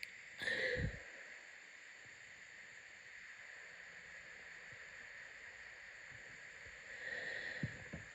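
A congested person's sneeze, muffled into a blanket, about half a second in. It is followed by several seconds of faint steady hiss, then a noisy breath in near the end.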